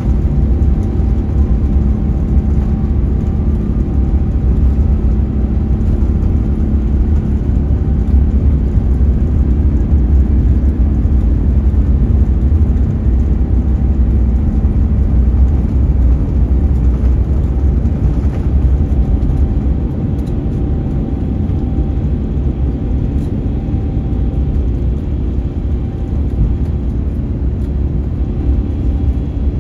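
Airbus A350-900 takeoff heard inside the cabin: the Rolls-Royce Trent XWB engines at takeoff thrust over a steady, heavy rumble from the runway roll. The rumble eases a little about two-thirds of the way through as the aircraft lifts off.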